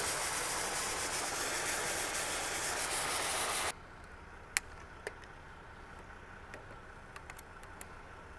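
Compressed air and a fine water mist hissing out of a truck-mounted water tank's shower nozzle, cut off suddenly a little under four seconds in; a few light clicks follow. Air rather than water is coming out, because the tank is tilted on a sloping driveway and the air sits at the outlet end.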